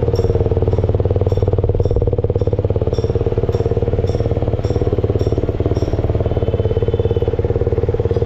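Yamaha MT-15's single-cylinder engine running steadily at idle, with a light tick about twice a second over the first six seconds.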